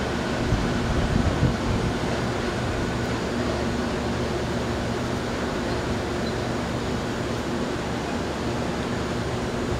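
Taiwan Railway electric multiple unit train moving slowly through a rail yard: a steady hum and rumble from its motors and equipment, with a few heavier low rumbles in the first second or so.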